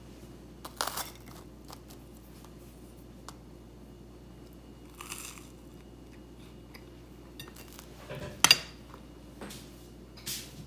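A metal fork spearing and lifting pieces of toasted cheese sandwich off a ceramic plate: a few short crunches of the crisp toast and scrapes of the fork on the plate. The loudest is a sharp clink of the fork against the plate with a brief ring, about eight and a half seconds in.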